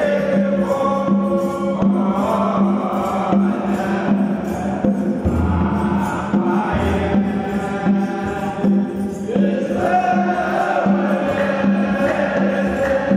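Ethiopian Orthodox Yaredawi chant (zema) sung by a group of priests in unison, a slow melody over a low held line, with a kebero drum beating along.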